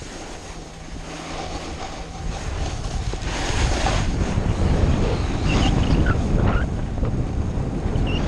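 Wind buffeting the microphone of a helmet-mounted camera as the rider picks up speed downhill, with the hiss of skis or board sliding on snow. It grows louder over the first three seconds or so, then holds.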